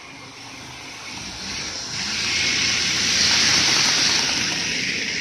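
N-gauge model of a JR 313 series electric train running past, its motor and wheels on the track making a rushing noise that grows louder, peaks about three to four seconds in as it passes closest, then begins to fade.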